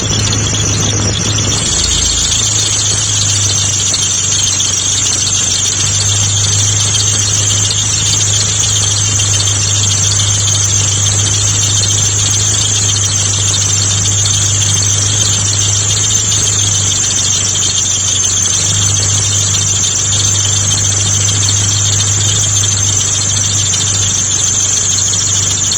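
Mitsubishi GTO's air-conditioning compressor magnetic clutch giving a loud, steady, high-pitched squeal over the running engine's low hum. The owner suspects the noise comes from wrong clutch clearance.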